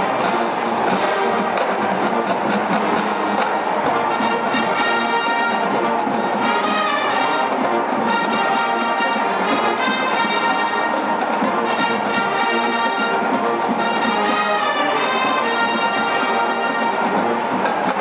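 College marching band playing: brass section sounding sustained chords over the drumline, at a steady loud level.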